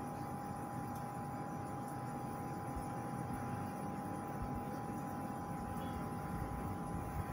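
Steady ambient background with a constant high hum held at one pitch; no distinct events.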